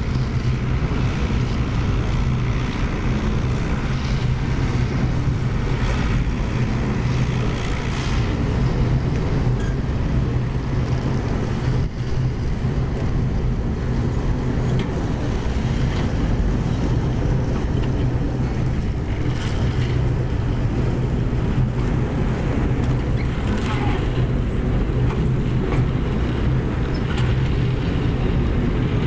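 Heavy machinery running at a steady, even drone with a low hum and a hiss over it, with a few faint knocks now and then.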